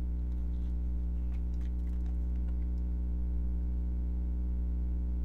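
Steady low electrical hum in the recording, with a few faint light ticks in the first couple of seconds.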